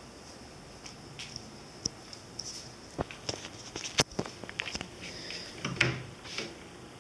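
Wooden cabinet door under a TV stand being handled and opened, a scattered series of light knocks and clicks over the last few seconds, against a faint steady hiss.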